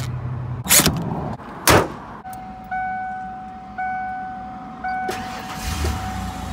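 Two loud thumps, then a Ford Explorer's key-in-ignition warning chime sounding about once a second. About five seconds in the engine is cranked and starts running while the chime carries on.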